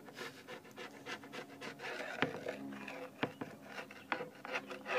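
A small metal blade scraping across a wooden board top in a quick series of short strokes, a few of them sharper and louder.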